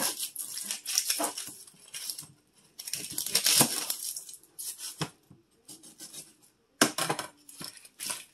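Kitchen knife cutting a whole onion in half on a plastic cutting board, the dry onion skin crackling as it is cut and handled, with a few sharp knocks on the board.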